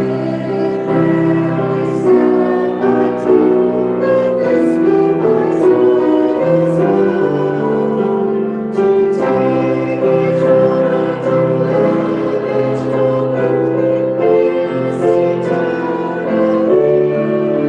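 Music: voices singing a slow song of long held notes over keyboard accompaniment.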